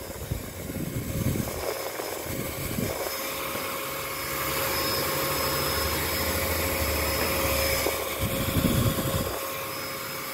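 12 V DC turbo blower fan (a centrifugal blower) running at full speed: a steady whine over a rush of air, with a few low bumps as it is turned in the hand.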